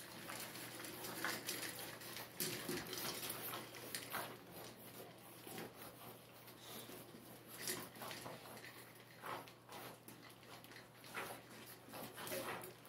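A litter of six-week-old boxer puppies eating dry kibble from metal bowls: faint, irregular clicks, crunching and shuffling.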